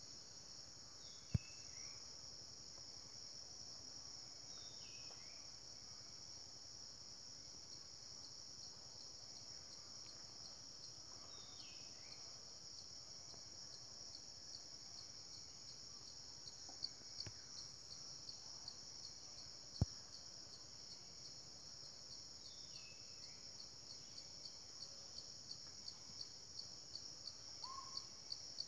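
Faint, steady high-pitched chorus of crickets, which starts to pulse in quick beats near the end. A short falling call sounds four times, and there are a few sharp clicks.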